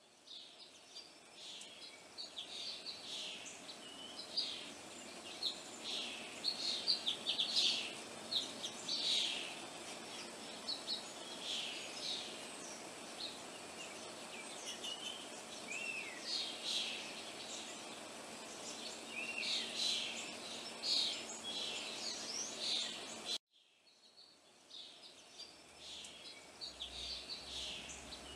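Small birds chirping and twittering: many short, overlapping high calls with a few quick sliding notes, over a faint steady hum. The sound drops out suddenly near the end and then resumes.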